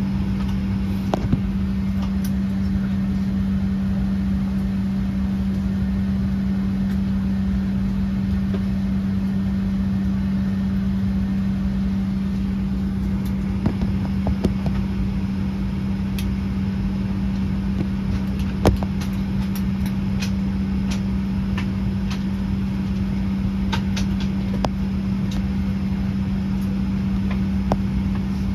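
Steady drone inside a Boeing 737-800 cabin at the gate with the engines not yet started: cabin ventilation airflow with a constant low hum, and a few light clicks and knocks, the sharpest about two-thirds of the way through.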